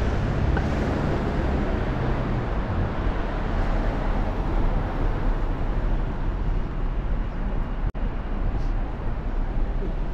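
Road traffic on a town street: cars driving past close by, a steady mix of engine hum and road noise, with one engine's hum strongest in the first few seconds. The sound cuts out for an instant about eight seconds in.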